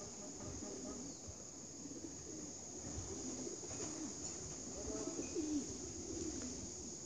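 Racing pigeons cooing, many low, wavering coos overlapping.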